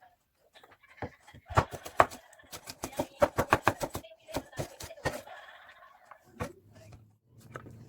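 Knife chopping vegetables on a cutting board: a few strikes, then a quick run of about five a second, then a few more.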